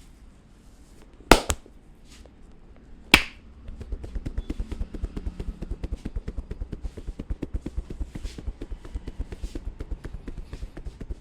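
Head massage: two sharp snaps a couple of seconds apart, then a fast, steady run of light taps or clicks, several a second.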